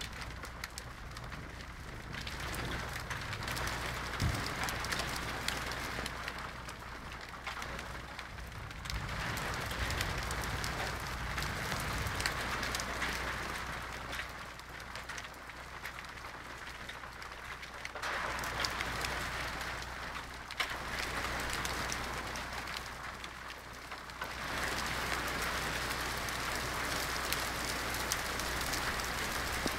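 Hail pelting stone paving and plants in a storm, a dense steady patter that swells and eases several times.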